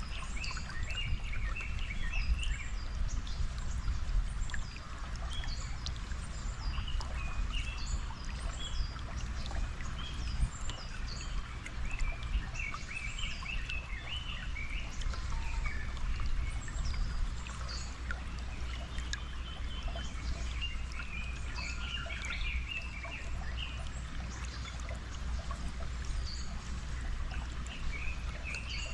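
Natural flowing water with a steady low rumble, and many small birds chirping over it in short, quick calls.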